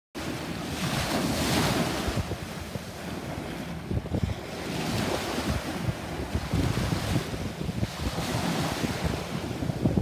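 Small waves washing up onto the sand at the shoreline, the hiss swelling and fading a few times, with wind buffeting the microphone.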